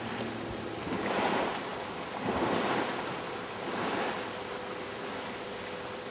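Outboard-powered plastic motorboat running past, with three swells of rushing water wash about a second and a half apart as its spray and wake splash, over a faint steady engine hum.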